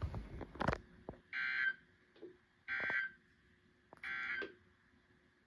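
Three short, buzzy data bursts about a second and a half apart: the SAME End of Message (EOM) tones that a NOAA Weather Radio transmitter sends to close a broadcast. A couple of sharp clicks come just before the first burst.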